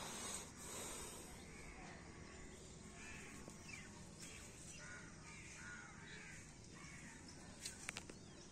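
Crows cawing faintly, a string of short repeated calls starting about two seconds in, with a few sharp clicks near the end.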